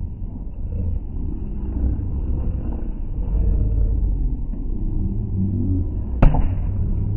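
Low, muffled rumble of slowed-down crowd and ground noise at an outdoor volleyball match. One sharp smack about six seconds in, the ball striking a player's hands.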